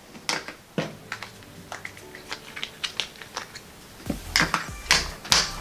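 Small hard plastic clicks and taps as action-camera batteries and their little plastic battery cases are handled and set into the foam of a hard case, with a few louder clacks near the end.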